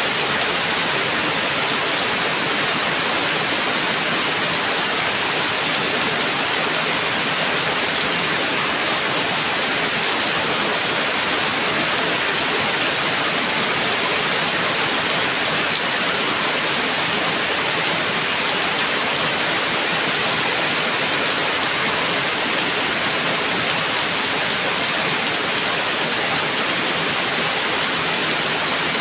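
Heavy rain falling and pattering on surfaces in a dense, steady hiss, without thunder.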